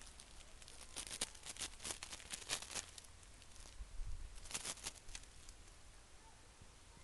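A kitten's claws scratching and scrabbling on the bark of a lichen-covered tree branch, with twigs and leaves rustling: a run of dry crackles from about one to three seconds in, and another around four to five seconds in.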